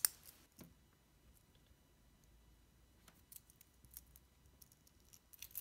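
Stainless-steel watch bracelet's folding clasp snapping shut with one sharp click, followed by a few faint clicks of the metal links as the wrist moves.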